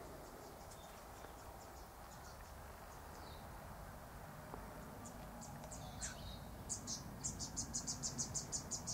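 Faint high-pitched chirping from a small unseen animal, scattered at first, with a couple of short falling notes, then a quick even run of about five chirps a second near the end.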